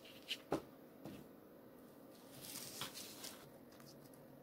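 Faint handling noises of craft materials on a tabletop: a few light clicks in the first second, then a brief rustle about two and a half seconds in.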